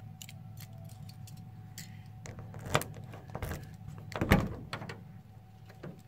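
Rear door of a UAZ-2206 van being opened: light clicks and metal rattles from the handle and latch, a sharp knock a little before three seconds in, then the loudest clunk a little past four seconds as the latch releases and the door swings open.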